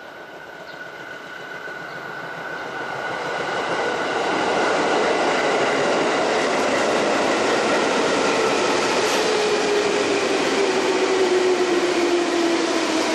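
An electric freight locomotive and its train approaching on the rails. The rumble grows louder over the first four seconds or so and then holds steady. A high whine runs through it, and from about halfway a lower whine slowly falls in pitch.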